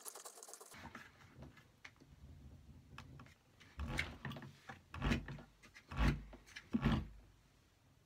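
A washing machine motor's plastic magnet rotor being turned by hand: a rapid ticking that stops under a second in, then rubbing and clicking as the rotor is handled, with several dull thumps from about halfway.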